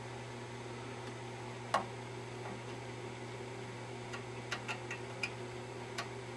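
Small scattered clicks and ticks: the alignment tool knocking and turning against the TV's metal IF coil cans as a coil slug is adjusted. One sharper click comes about two seconds in, and several lighter ticks come later. A steady low electrical hum sits underneath.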